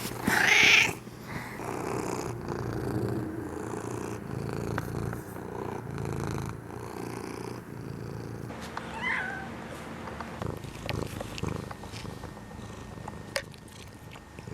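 A domestic cat purring steadily, opening with a loud rising meow in the first second and giving a short chirp about nine seconds in.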